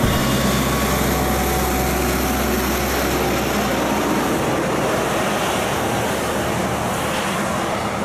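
Heavy trucks driving on a highway: a steady low engine drone through the first half, under a broad rush of road and wind noise that carries on after the drone fades about halfway through.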